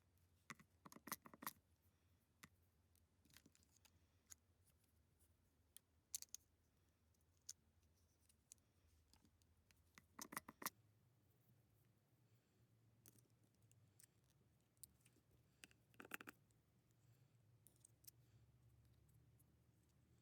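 Near silence with a few faint clicks and small taps, in little clusters about a second in, around ten seconds and around sixteen seconds.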